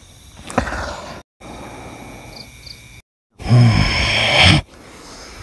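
A deep, rough growl lasting about a second, starting about three and a half seconds in. Before it the sound drops out to dead silence twice.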